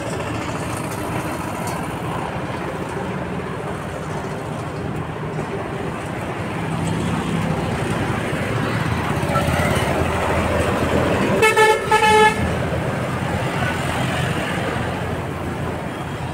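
Steady road traffic noise with a vehicle passing, then a horn sounding two short toots about two-thirds of the way through.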